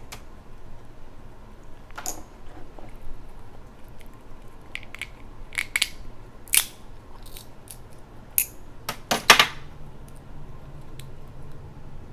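Crab shell being handled and cracked: a scatter of sharp clicks and cracks, with the loudest cluster about nine seconds in.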